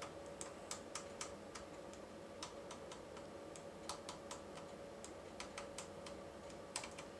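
Channel selector knob of a 1981 JWR M2 CB radio clicking through its detents as it is turned, a run of uneven faint clicks. A faint steady tone sits underneath.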